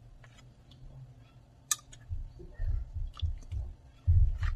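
A large plastic spoon stirring a thick, creamy fruit salad in a plastic mixing bowl: wet stirring with sharp clicks of the spoon against the bowl, and a series of low thumps in the second half, the loudest near the end.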